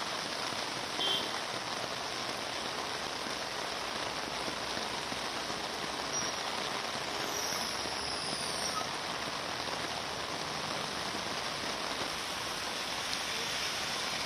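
Heavy monsoon rain falling steadily: a dense, even hiss of downpour.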